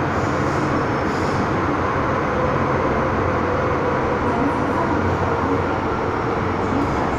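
Steady running noise inside a moving MTR M-Train metro car: wheels rumbling on the track, with a faint steady hum over it.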